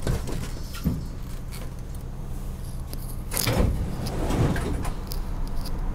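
MBTA subway train standing at a station platform: steady low hum of its onboard equipment, with scattered clicks and a short rush of noise about three and a half seconds in.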